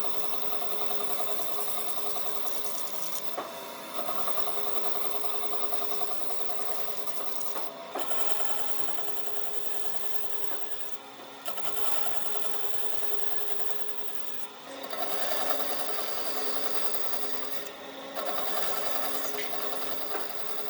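A small electric power tool running steadily with a buzzing whir, broken by a few short breaks.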